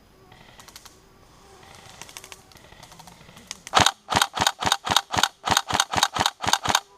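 Airsoft electric rifle, a Tokyo Marui SCAR-H, firing close by in a rapid string of about fifteen shots, roughly five a second, starting a little past halfway. Before that, fainter scattered clicks of airsoft fire.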